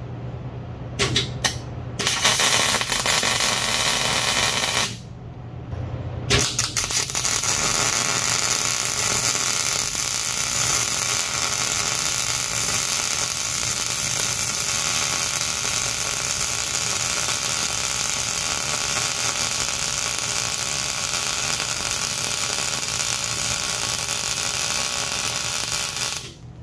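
MIG welder arc crackling and hissing as it lays beads on the steel ram mount. There are two brief tacks about a second in and a short bead of about three seconds. After a pause, a long, slow continuous bead starts around six seconds in and stops just before the end.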